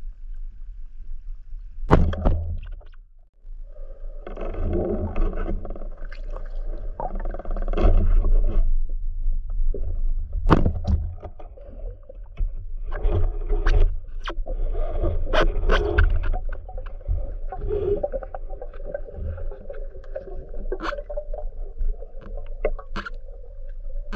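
Underwater sound in a river: a steady low rumble of moving water with sharp knocks and clicks scattered through it, and in long stretches a wavering, droning tone.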